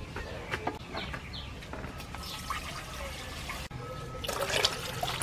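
Water in a metal pot heating on a portable gas stove, hissing and crackling as it comes toward the boil; it comes in after a sudden break about three-quarters of the way through. Before it there are light clicks and rustles of herbs being handled in a basket.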